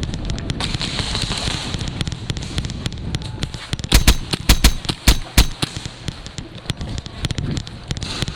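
A quick string of about six sharp, loud shots from a gas blowback airsoft pistol, a WE Glock 17, about four to five and a half seconds in, fired in quick single shots. Fainter pops and clicks from the game and the player's movement come before and after.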